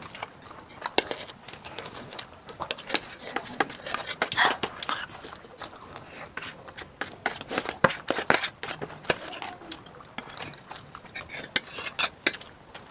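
Cutlery repeatedly clinking and scraping against plates and bowls while spicy instant noodles and fried eggs are eaten, in many short irregular clicks.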